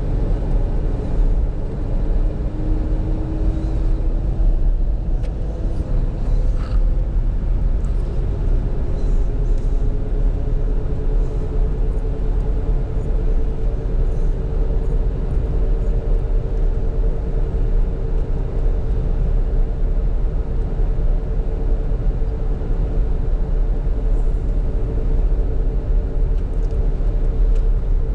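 Driving noise inside a Ford's cab: a steady low engine and road rumble, with a faint hum that rises a little in pitch over the first several seconds and then holds steady.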